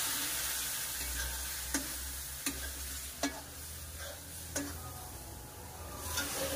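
Roasted gram flour in a metal kadhai sizzling as hot sugar syrup is added little by little. A metal spoon stirs and scrapes the pan, with several sharp clicks against its side.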